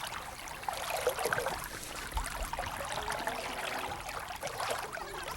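Water rushing and splashing along the hull of a sailboat under way, an irregular hiss with small splashes throughout.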